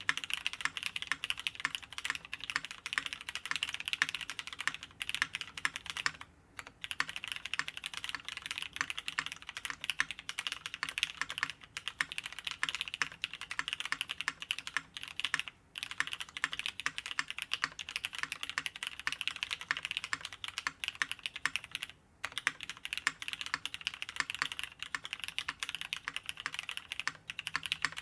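Fast, continuous typing on a kona60 custom mechanical keyboard with lubed Cherry MX Black linear switches, an aluminium plate and GMK keycaps, on a leafspring grommet mount. Three short pauses break the keystrokes.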